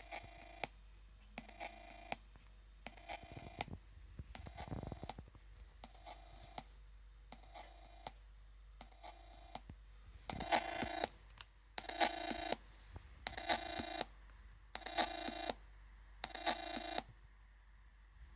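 Chromebook Pixel laptop running Ubuntu giving off a weird repeating buzzy, ringing noise: short bursts about every one and a half seconds, about a dozen in all, louder from about ten seconds in.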